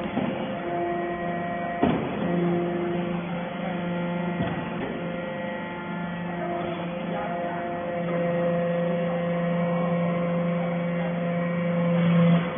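Hydraulic baler for metal chips running: a steady hum from its pump and motor, with a sharp knock about two seconds in. The hum grows louder in the second half and drops off sharply near the end.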